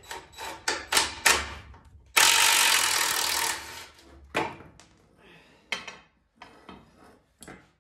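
A ratchet wrench clicking in quick strokes on a suspension bolt, then a longer loud scrape as the loose steel front sway bar is moved against the concrete floor, followed by scattered light metal clanks.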